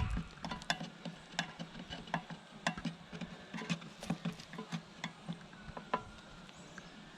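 Irregular light clicks and taps, roughly two or three a second, from hands working beekeeping gear while the bee package is being opened.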